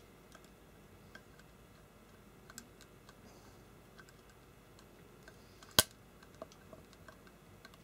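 Faint light clicks and ticks of a small precision screwdriver turning a screw out of a Seagate hard drive's metal cover. There is one sharp, loud click near the end.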